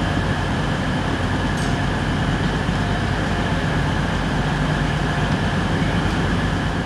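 Class 222 Meridian diesel multiple units standing at the platform with their underfloor diesel engines idling: a steady hum and rumble.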